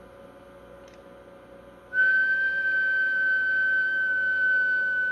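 A single steady whistled tone, high and held for about three and a half seconds, starting about two seconds in and serving as a test tone into the CB radio's microphone while it transmits; the oscilloscope shows the resulting AM-modulated waveform. Before it, only a faint steady equipment hum.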